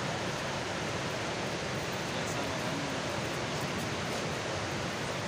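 A river in flash flood rushing past: a steady, unbroken wash of water noise from the swollen, muddy torrent.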